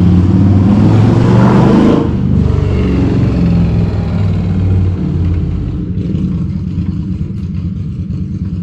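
A motor vehicle's engine running close by, loudest in the first two seconds, then slowly fading.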